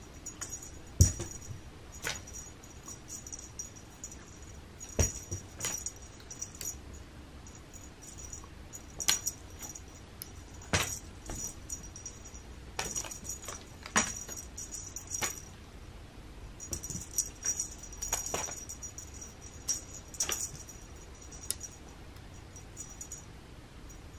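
A cat playing with a tinsel dragonfly wand toy: scattered sharp taps and light rattles as the toy and paws hit the cushion, with a faint high trill that comes and goes.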